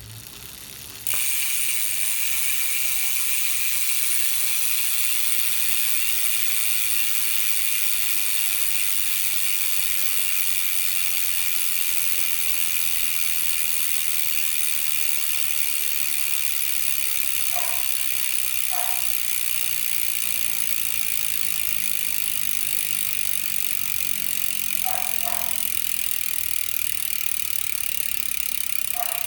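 Velo Orange bicycle hub freewheeling as the wheel is spun, its ratchet pawls clicking so fast they make a continuous loud buzz. It starts about a second in and slowly falls in pitch as the wheel coasts down.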